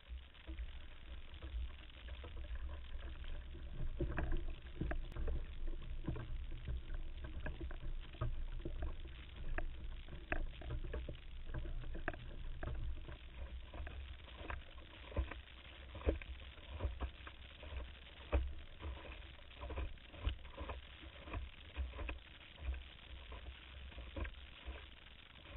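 Water slapping and splashing against the hull of a Solway Dory sailing canoe, with many short sharp splashes, over a steady low rumble of gusting wind on the microphone.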